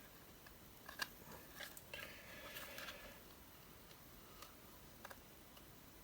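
Faint handling of a small plastic LED-strip remote control as its battery compartment is opened: a few light clicks about a second in, a short scraping rustle, then a couple of small ticks near the end.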